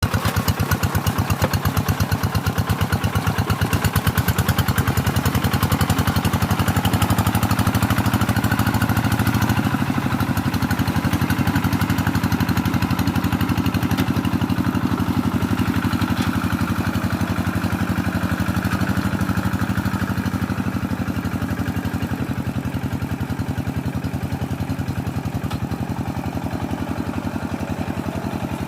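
Small combustion engine running steadily at idle, easing slightly in level over the last several seconds.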